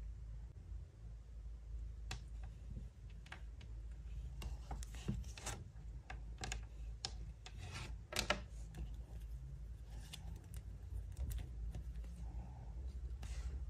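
Light, scattered clicks and taps of long fingernails handling small plastic toy pieces, with the loudest cluster about eight seconds in, over a faint low hum.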